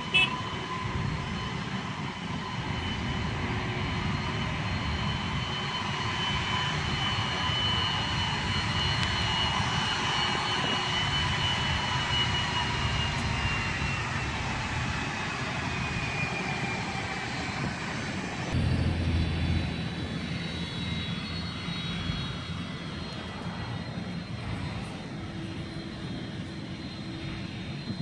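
Airbus A330-300 airliner's twin turbofan engines running as the jet moves slowly along the runway: a steady jet noise with a high whine that slowly falls in pitch about halfway through. A brief low rumble comes about two-thirds of the way in.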